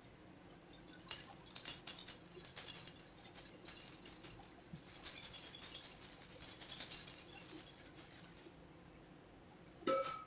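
Refined wheat flour being sifted through a handheld plastic sieve shaken over a plastic bowl, making a fast, uneven rattle of light taps and patter from about a second in until near the end. A single short knock follows just before the end.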